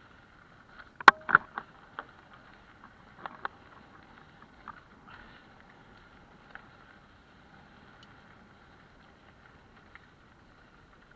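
Mountain bike jolting over a rough, stony track: a cluster of sharp rattling knocks about a second in, a few more around two and three and a half seconds, then fainter rolling noise.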